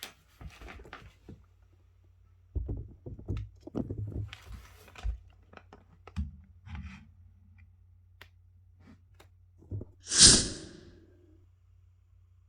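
Hands unpacking and handling objects: low knocks and bumps, scrapes and small clicks. About ten seconds in comes one loud, sharp snap with a short hissing tail.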